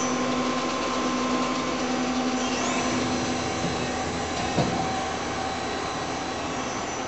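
Machinery running: a steady hum and hiss with faint steady whining tones, and a single click about four and a half seconds in.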